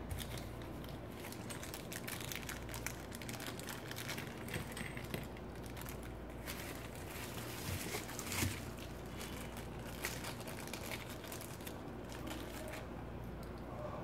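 Plastic parts bags and bubble wrap being handled, crinkling and crackling irregularly, loudest about two-thirds of the way through. The rustling stops shortly before the end.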